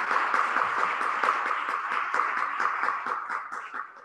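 A small audience applauding, thinning out near the end to a few scattered claps.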